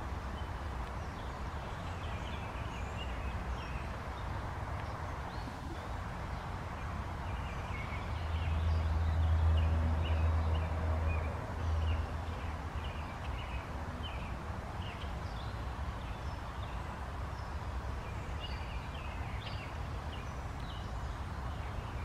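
Small birds chirping in short, scattered calls over a steady low rumble, which swells louder for a few seconds in the middle.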